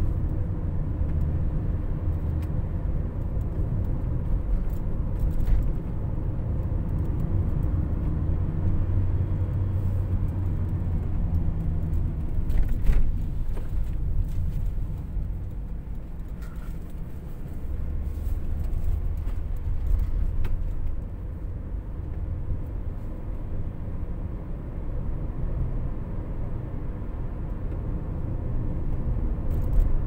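Cabin noise inside a Toyota Noah 70-series minivan on the move: a steady low drone of engine and tyre noise, easing off for a while about halfway through and again later, with a few faint knocks from the road.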